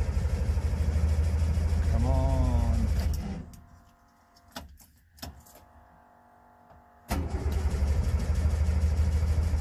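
Subaru 360 van's starter cranking its cold air-cooled two-stroke twin with the choke pulled, a low rapid churning in two long bursts with a pause of about four seconds between them, with a couple of clicks in the pause. The engine does not catch.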